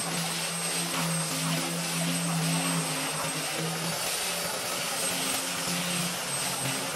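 Handheld electric woodworking tool running steadily as it is pushed across the face of a large wooden slab, its motor hum shifting in pitch as the pressure changes.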